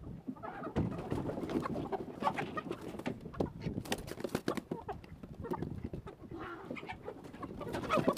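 Chickens clucking and squawking with wings flapping and scuffling as they are chased out of a coop.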